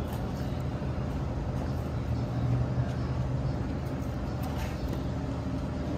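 Steady low engine rumble, swelling a little about two to three and a half seconds in.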